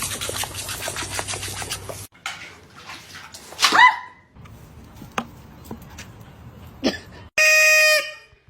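A pet's short calls: a loud call falling in pitch about three and a half seconds in, after some rustling and small clicks. A louder, held, steady-pitched sound follows near the end.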